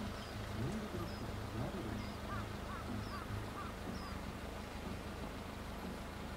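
A steady low engine drone, with birds chirping repeatedly over it: short high chirps about every half second, and a few curling calls in the middle.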